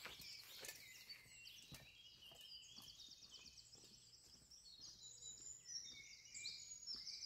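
Faint woodland birdsong: several birds singing over one another, in short chirps and phrases, with a fast run of repeated notes about halfway through.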